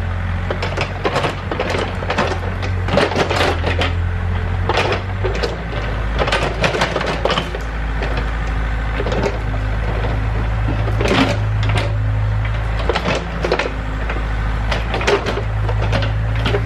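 Excavator engine running, its note shifting about five and thirteen seconds in as the load changes, with many irregular knocks and cracks of wood and roots being broken and moved.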